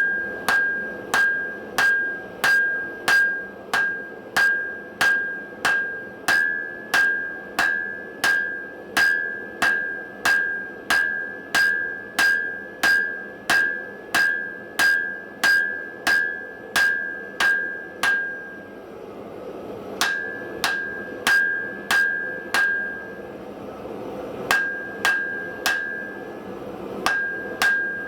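Hand forging hammer striking steel on an anvil in a steady rhythm of about one and a half blows a second, each blow leaving a clear metallic ring. After a pause of a couple of seconds the blows come in short groups of three or four.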